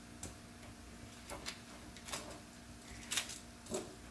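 Metal tongs clicking against crab shells and the cast-iron tawa as the roasting crabs are moved, about six separate clicks, the loudest about three seconds in, over a faint steady hum.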